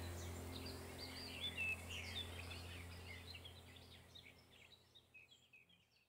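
Small birds chirping and twittering over a steady low hum, the whole sound fading away over the last couple of seconds.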